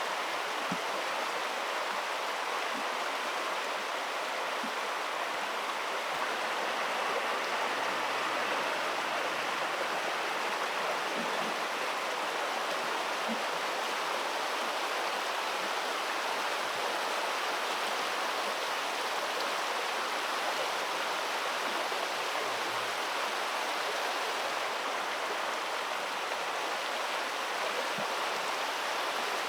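Steady rush of flowing stream water, an even, unchanging noise.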